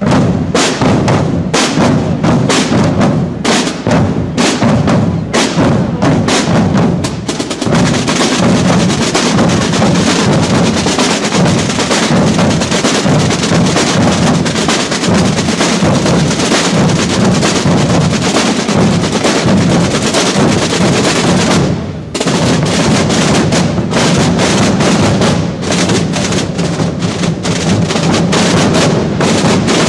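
A corps of Holy Week drummers playing tall rope-tensioned drums with sticks. Separate beats for the first several seconds build into a long continuous roll; after a brief break about two-thirds of the way through, the beaten rhythm starts again.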